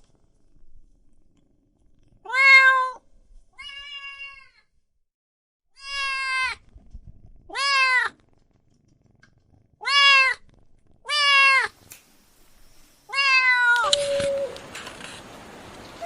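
A cat meowing over and over: seven separate meows, each rising then falling in pitch, spaced a second or two apart. Near the end a steady hiss comes in, with a short, flatter call in it.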